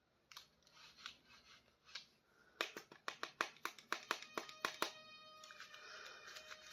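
Toy packaging being handled and opened by hand: soft scattered clicks, then a quick run of sharp plastic clicks and crinkles, about four or five a second, in the middle. Near the end a faint, held musical tone comes in.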